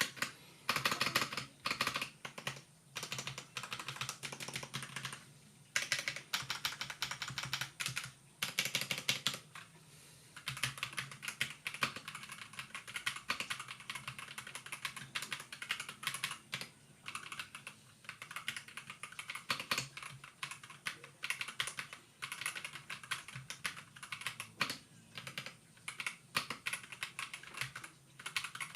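Typing on a ZiFriend ZA68 mechanical keyboard with factory-lubed TNT linear switches: quick runs of key clacks, each lasting a second or a few seconds, broken by short pauses.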